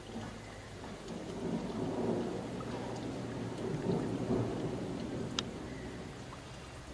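A low, uneven rumbling noise that swells and fades, with one sharp click about five and a half seconds in.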